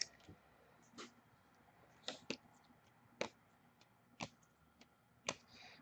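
Trading cards being flipped through one at a time: a faint, sharp click about once a second as each card is slid off the stack.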